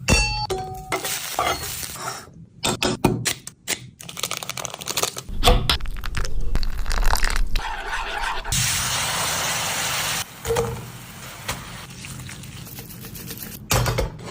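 Cooking noises: a run of sharp cracks and clatters, then a steady hiss from a little past halfway.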